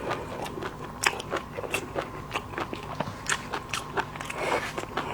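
Close-miked ASMR eating of seafood: crisp, crackling bites and crunches come irregularly, a couple of times a second, as the food is chewed.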